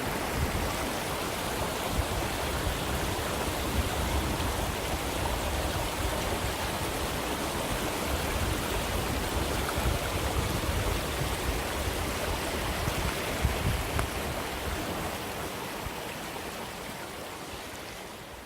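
Mountain stream water rushing and splashing over rocks in a steady wash, fading out over the last few seconds.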